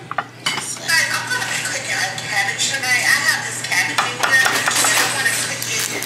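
A wooden spoon stirring cooked elbow macaroni in a glass baking dish, with repeated scrapes and knocks of the spoon against the glass.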